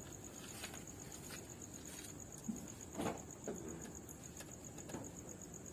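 A few faint clicks as the switch of a snail-type air horn is pressed, with no horn blast: the air supply is too low to sound it. A steady, high-pitched pulsing chirr runs underneath.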